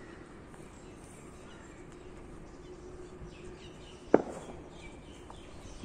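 Quiet outdoor ambience with faint bird chirps and a faint steady hum, broken by one sharp click a little after four seconds in.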